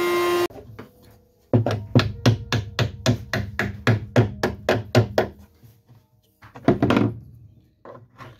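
Small wooden wedges tapped in with a hammer, first a quick run of about five light knocks a second, then a few harder knocks near the end. The wedges drive popsicle-stick clamps down to press a square piano's soundboard onto its rim while the glue in the joint sets. A brief steady hum is heard at the very start.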